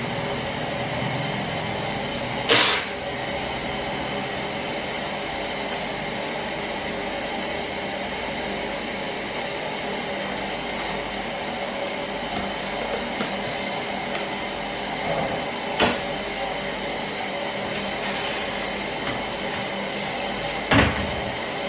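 A steady rushing, rumbling background noise. Over it come a sharp clink about two and a half seconds in, another about sixteen seconds in, and a heavier knock near the end, from kitchen utensils and containers being handled.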